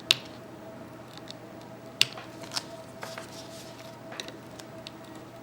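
A sharp tool clicking and scraping against the iPad's frame while it works loose a strip of adhesive tape: a few sharp clicks, one just after the start and others about two seconds in, and a soft scratchy scrape in the middle, over a faint steady hum.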